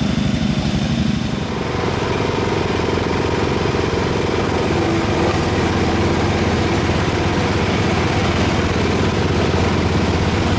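Small garden tractor engine running steadily while driving; about a second and a half in the engine note shifts and then holds steady.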